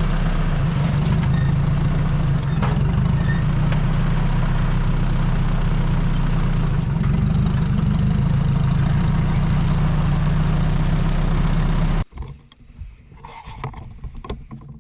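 1959 Ford 641 tractor's four-cylinder engine running steadily with an even, low drone. The sound cuts off abruptly about twelve seconds in, leaving only faint clicks and rustling.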